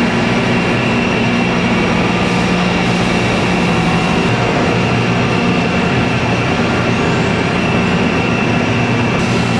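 Steady factory machinery noise: a continuous low hum with a faint high whine, unchanging throughout.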